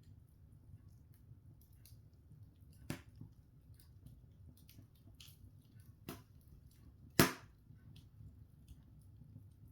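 Open log fire burning, the wood crackling with scattered faint ticks and three sharper pops, the loudest about seven seconds in, over a low steady rumble.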